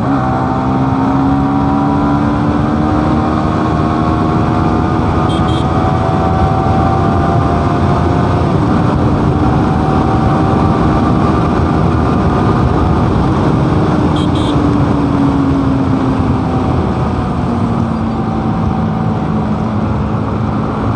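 Motorcycle engine running while riding on a wet road, its note slowly rising and falling with throttle, under a steady loud rushing of wind and road noise.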